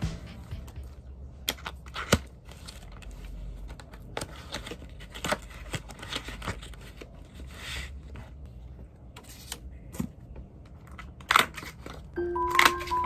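Hands handling paper and plastic binding-cover sheets: rustling and crinkling with scattered sharp taps and clicks, and two louder snaps near the end.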